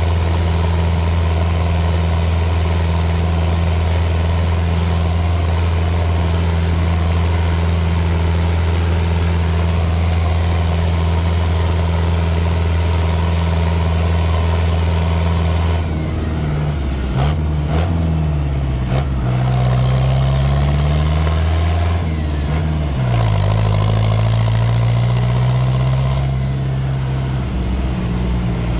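Fiat New Holland L85 tractor's turbocharged engine running steadily, then from about halfway revved up and dropped back several times.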